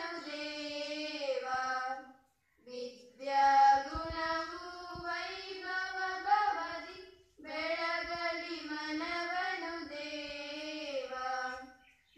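A group of schoolchildren singing a song in unison, in long phrases with short breaks about two and seven seconds in.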